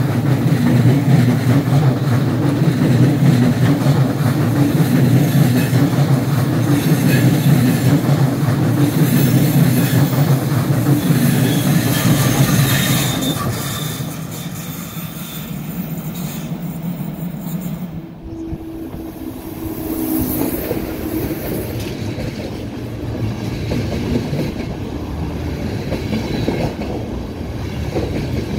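An ÖBB Railjet passenger train rolls past close by, its wheels on the rails making a loud, steady rumble with clickety-clack. The sound eases off about 13 s in as its rear Taurus electric locomotive goes by. After a sudden cut about 18 s in, a quieter, slower train rolls along: a Eurocity hauled by a Taurus locomotive moving through a station.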